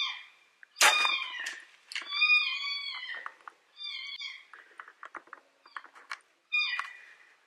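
Electronic game caller playing a repeated high-pitched animal distress cry, one cry about every two seconds. A sharp knock comes about a second in, and there are light clicks and rustles near the middle.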